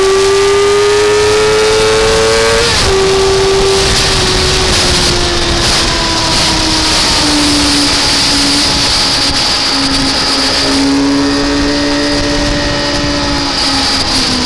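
Car engine at high revs, its pitch rising under acceleration until a sudden drop about three seconds in, then falling slowly as the car slows. A steady hiss runs underneath.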